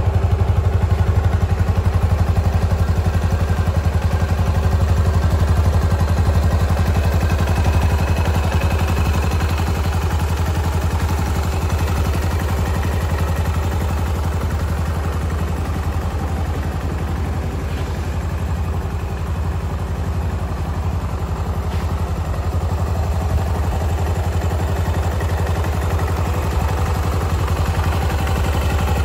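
Stock Yamaha SR400 air-cooled single-cylinder four-stroke engine idling steadily through its standard exhaust, with an even, low thumping beat.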